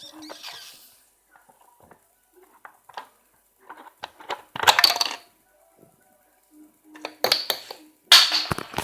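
Coke bottle making odd sounds: scattered small clicks and clinks, with short crackling bursts about halfway through and again near the end.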